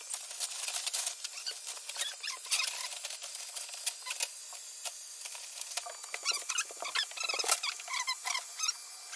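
Fast-forwarded sound of vinyl-wrap work on an ATV: sped-up voices and handling noise turned into high, squeaky chipmunk-like chatter with many quick clicks.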